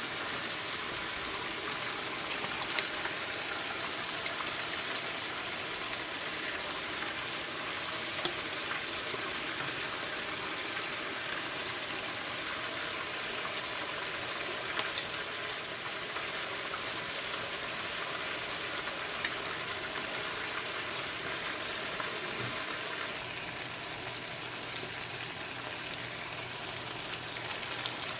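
Chicken frying in hot oil with onions and ginger garlic paste, sizzling steadily, with a few sharp pops or clicks here and there.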